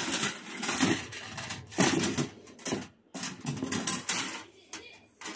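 Metal barbecue utensils clattering and rattling in their box as they are rummaged through, in about six irregular bursts.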